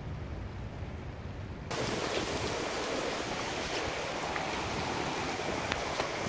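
Heavy rain falling, a steady hiss. About a second and a half in, it cuts abruptly from a dull, low rush to a louder, brighter hiss of rain, with a few faint ticks.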